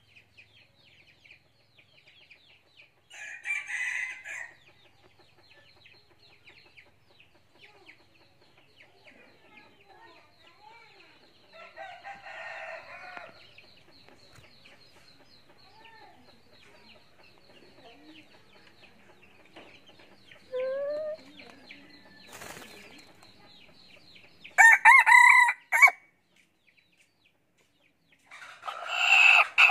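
Red junglefowl rooster crowing: two loud, clipped crows in the last few seconds, with fainter calls earlier, over a faint steady high buzz.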